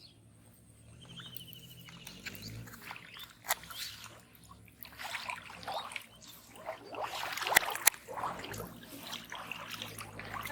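Shallow canal water sloshing and trickling as someone works through it with a fishing net, getting busier from about two seconds in, with two sharp splashy knocks in quick succession near the end. A short high trill sounds about a second in.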